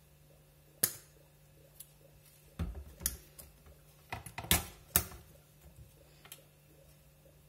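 Scattered sharp clicks and light knocks from a plastic salad dressing bottle being handled, with two quick clusters about two and a half and four and a half seconds in.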